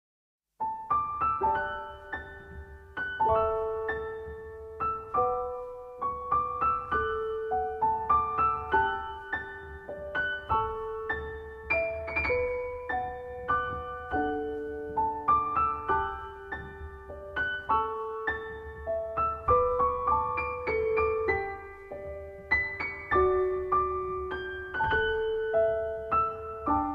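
Background music: a gentle piano melody of single notes over sustained bass notes, starting about half a second in.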